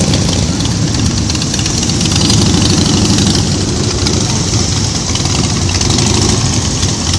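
A procession of motorcycles, mostly Harley-Davidson V-twins, rolling past at low speed. Their engines run together in a steady, loud, overlapping mix.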